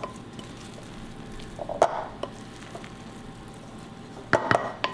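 Wooden spoon stirring moist bread stuffing in a glass bowl, with a few short knocks about two seconds in and again near the end.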